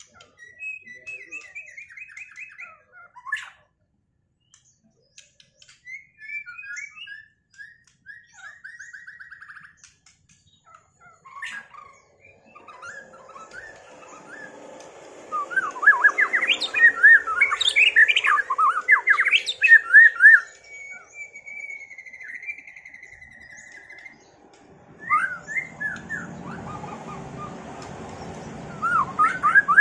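White-rumped shamas singing in a duel: quick trills and varied whistled phrases, sparse at first, then a loud, dense run of song about halfway through and more bursts near the end.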